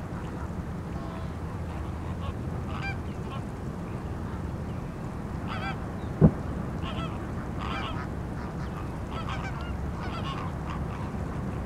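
Feeding flock of greater flamingos giving short honking calls in scattered bursts every second or two. A single sharp knock about six seconds in is the loudest sound, over a steady low rumble.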